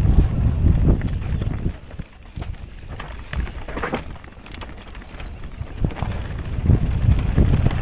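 Mountain bike riding over rough trail: a quick run of knocks and rattles from tyres and frame over rocks and roots, over a heavy rumble of wind on the microphone. The rumble eases for a few seconds in the middle and builds again near the end.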